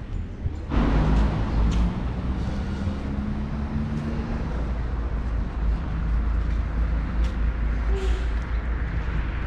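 A motor vehicle's engine running close by, coming in suddenly about a second in, over steady street traffic noise.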